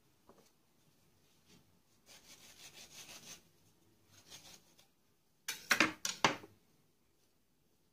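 Kitchen utensils scraping and rubbing in two short stretches, then a quick cluster of sharp knocks and clatter past the middle, the loudest sounds here.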